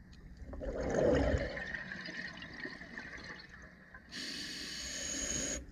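Scuba regulator breathing underwater. A gurgling rush of exhaled bubbles comes about a second in and trails off. Near the end a steady hiss of inhalation through the demand valve starts and cuts off suddenly.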